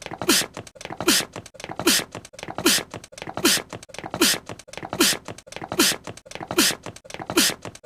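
A small, cute voiced sneeze from an anime character, repeated on a loop about once every 0.8 seconds, roughly ten times. Each sneeze is a quick hissy burst with a short voiced note that drops in pitch.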